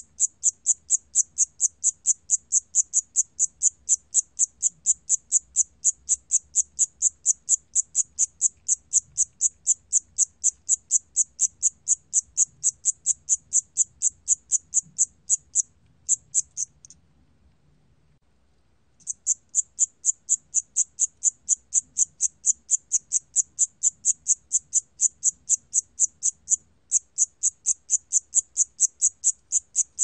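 Siam cricket (샴귀뚜라미) singing at 28 °C: a steady run of high chirps, about three a second. The song stops for about two seconds a little past the middle, then picks up again.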